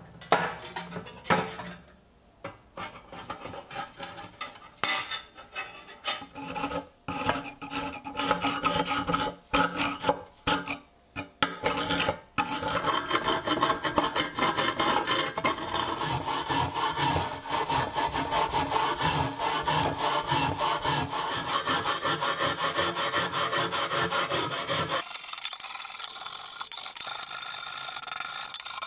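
Hand file scraping crusted rust off the steel blade of a rusty Mosin–Nagant socket bayonet, in separate strokes at first, then continuous rapid back-and-forth rasping from about halfway. In the last few seconds the sound turns to a lighter, higher scrubbing of a steel wire brush on the blade.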